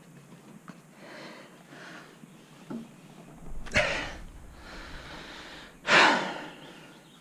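A man's hard breaths of effort, two loud gasping exhales about four and six seconds in, the second the louder, as he strains to twist off a cap on the valve cover of a hot engine that has gone stuck tight because its plastic threads swell with heat.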